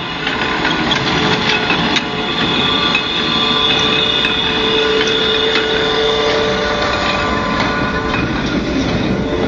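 Welger AP12 small square baler running, its mechanism clattering steadily with scattered ticks and a steady whine.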